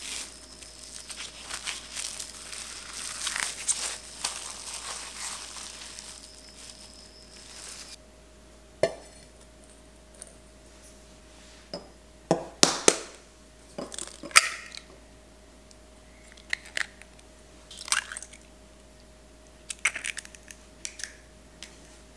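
Plastic cling film crinkling as it is wrapped around a disc of dough. After a pause, eggs are tapped and cracked into a stainless steel bowl, a series of sharp clicks and knocks.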